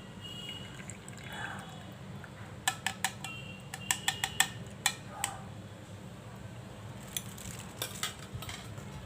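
Blended ginger-turmeric lemonade being poured through a strainer into a glass, with a quick run of sharp clinks of utensils against glass and jar about three to five seconds in and a few lighter knocks near the end.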